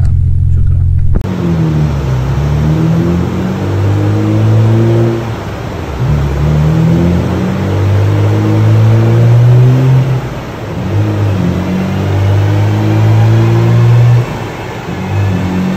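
Nissan Skyline GT-R R32's RB26 twin-turbo straight-six revving, its pitch climbing and dropping back several times, roughly every four to five seconds.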